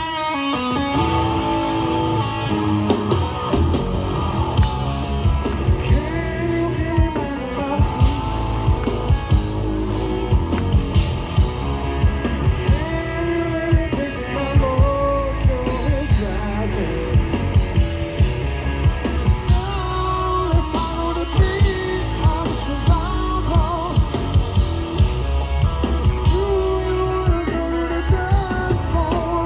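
Rock power trio playing live: electric guitar, bass and drum kit with a male lead vocal. It opens on guitar, and the drums and singing come in a few seconds in.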